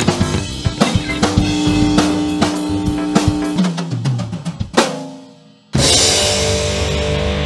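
Rock band playing: a drum kit beat with kick, snare and fills, ending in a last hit about five seconds in. After a brief drop, a loud distorted electric guitar chord is struck and left ringing.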